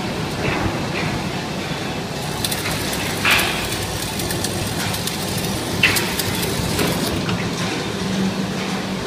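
Manual arc tack welding on an H-beam, the arc crackling in short bursts, loudest about three seconds in and again near six seconds, over a steady machine hum.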